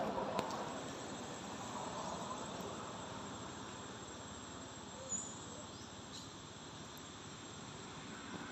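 Insects trilling steadily over outdoor background noise, which dies down over the first second or two. A short chirp comes about five seconds in.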